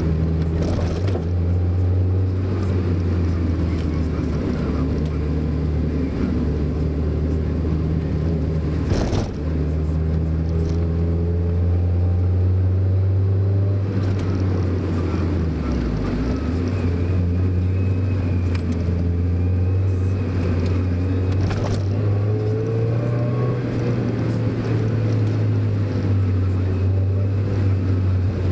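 Mazda Roadster's inline-four engine running steadily while the car is driven, heard from on board over road noise. The engine note dips briefly about halfway through and climbs again later, with a single knock about nine seconds in.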